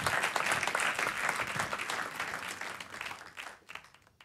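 Audience applauding, thinning out about three seconds in and dying away near the end.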